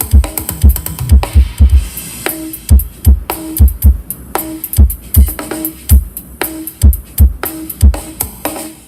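Music with a heavy drum-machine bass drum, about two kicks a second, and ticking cymbals, played loud through a budget MD18 loudspeaker cabinet under test.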